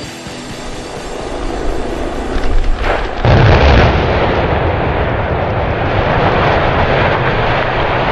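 Music for about the first three seconds, then a sudden loud blast of demolition charges and a long, heavy rumble as a high-rise tower block collapses.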